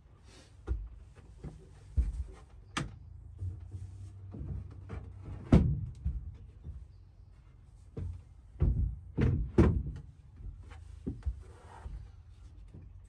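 Irregular hard knocks and thuds as metal-cased power units are set and shifted against a plywood mounting board, the loudest about halfway through and three more in quick succession a little later.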